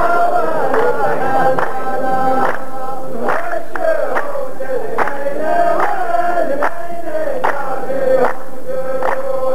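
A row of men chanting a qalta verse in unison as the chorus, holding long sung notes. They clap together in a steady beat, slightly faster than one clap a second.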